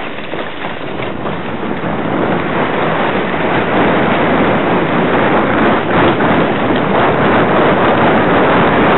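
A sled running fast downhill on snow: the noise of the runners on the snow mixed with wind rushing over the microphone. It grows louder over the first three seconds as speed builds, then holds steady.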